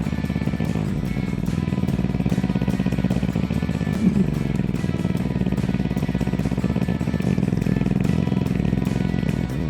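Motorcycle engine running steadily without revving, a rapid even pulsing that goes on without a break.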